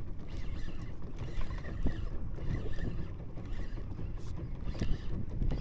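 Wind buffeting the microphone over the rumble of a small boat on the sea, with a few short knocks.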